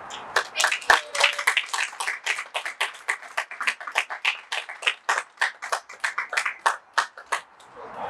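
A small audience clapping after a speech, the separate claps easy to pick out. The clapping thins out and stops after about seven seconds.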